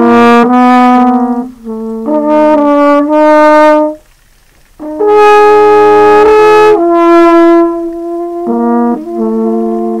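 Background music of slow, held brass-like horn notes, each lasting a second or two and stepping between pitches, with a short break about four seconds in.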